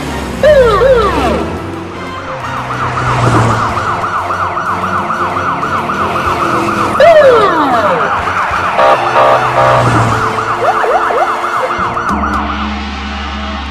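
Police siren in a fast, steady yelp over a vehicle engine, with two sharp falling swoops; the siren cuts off about a second before the end, giving way to low background music.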